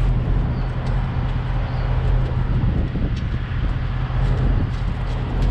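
Diesel truck engine idling with a steady low hum.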